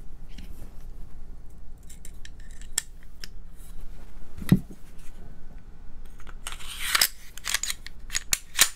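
Metal clicks and scrapes of a Sig M11A1 pistol being reassembled by hand: parts fitted into the slide, one dull knock about halfway, then a run of metal sliding and clicking near the end as the slide goes back onto the frame.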